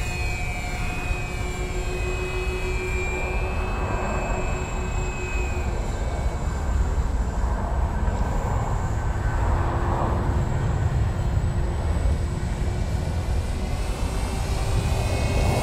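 Twinstar RC plane's twin electric motors and propellers whining steadily in flight, growing a little louder near the end, with wind rumbling on the microphone.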